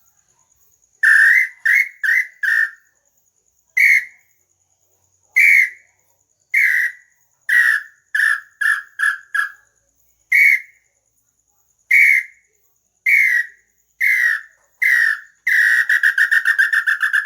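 Hand-blown bird-call whistle (pio) sounding a series of short whistled notes, each dipping slightly in pitch, some single and some in quick runs of three or four. It ends in a rapid warbling trill about two seconds long.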